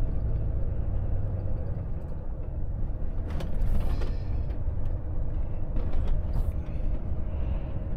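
Volvo FH truck's diesel engine and road noise heard from inside the cab while driving slowly, a steady low rumble.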